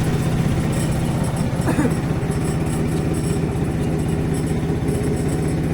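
A small engine idling steadily, with an even, rapid chugging.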